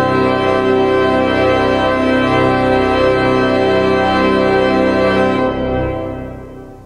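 Organ playing sustained full chords, the closing chord of a prelude, which fades away near the end.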